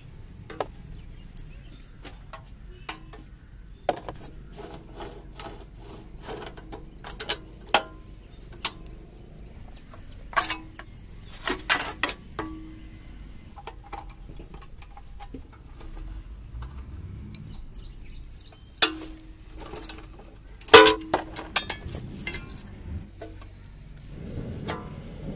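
Hand tools working on a moped's metal parts during disassembly: irregular sharp metallic clicks, taps and knocks of spanners on steel, some ringing briefly. A louder knock comes about three-quarters of the way through.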